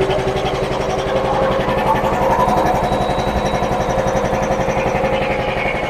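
PUMA 10 hp three-cylinder belt-driven air compressor running steadily. The pump pulses in a fast, even rhythm over the steady hum of its 3-phase induction motor as it pumps up the tank toward its automatic cut-out.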